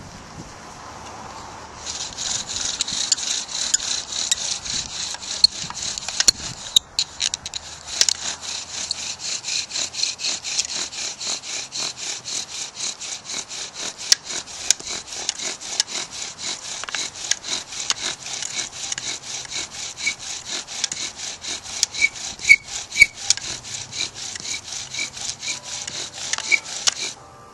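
Bow drill: a lodgepole pine spindle spun back and forth in a lodgepole pine hearth board, a rhythmic scraping rub with each stroke of the bow. It starts about two seconds in, breaks off briefly around seven seconds, and stops just before the end. The hearth is smoking from the friction heat as an ember forms.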